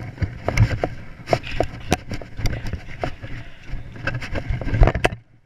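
Handling noise from a camera worn or carried low on a moving child: irregular knocks, clicks and rubbing over a low rumble, which cut off suddenly about five seconds in.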